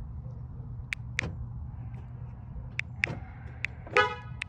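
Several sharp clicks, then about four seconds in a short horn chirp from the Honda, the signal that the car has locked and its alarm has armed.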